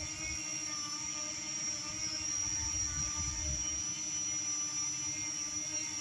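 Parrot Anafi quadcopter hovering, its propellers giving a steady whining hum made of several held tones.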